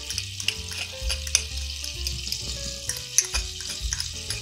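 Chopped garlic sizzling as it drops into melted butter in a stainless steel pot, with a metal spoon clicking and scraping as it pushes the garlic out of a small bowl.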